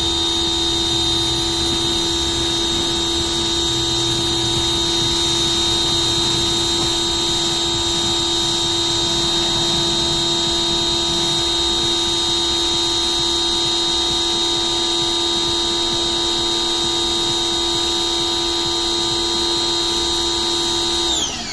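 Electric Ryobi pressure washer's motor and pump running with a steady high whine while the gun sprays water. Near the end the trigger is released and the motor winds down, its pitch falling quickly.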